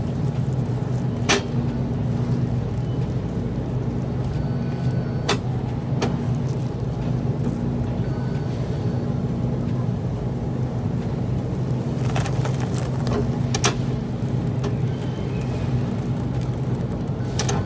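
A steady low machine hum, with a few sharp clicks and knocks: one about a second in, two around five to six seconds, a short cluster about twelve to thirteen seconds in, and one near the end.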